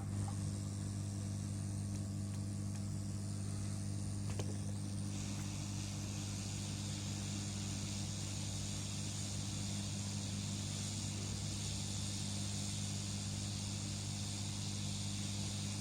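Steady low electrical hum with a hiss over it; the hiss steps up about five seconds in and holds, with a faint click just before.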